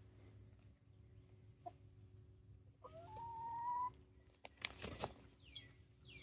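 Young hens (19-week-old Barred Rock and Gold Star pullets) calling: a short note about a second and a half in, then a drawn-out, slightly rising call about three seconds in. About five seconds in there is a brief flurry of rustling and flapping as the Barred Rock pullet hops down from its perch.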